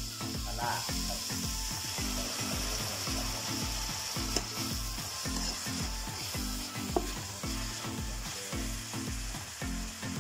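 Curry paste of chillies, shallots, garlic and lemongrass sizzling in oil in a wok while a spatula stirs and scrapes it round the pan. Under it runs a low, evenly repeating beat, about two a second.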